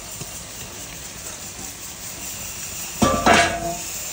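Noodles sizzling steadily in a hot oiled iron wok, then about three seconds in a loud metal clang with a short ring as the steel bowl knocks against the wok.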